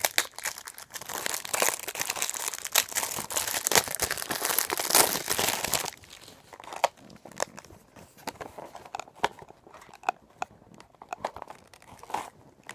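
Perfume box packaging being crinkled and torn open for about six seconds, then quieter scattered taps and clicks as the box is handled.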